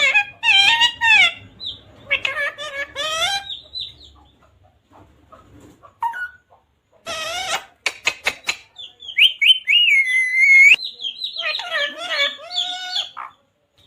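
Pet parrot calling in bouts of chirps and speech-like squawks, with a harsh squawk about seven seconds in, a few sharp clicks just after, and a held whistle around ten seconds.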